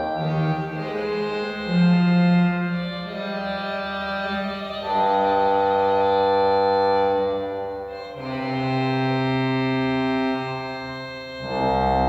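Small chamber organ playing slow sustained chords in French Baroque style, each chord held about three seconds, with a fuller, deeper chord entering near the end.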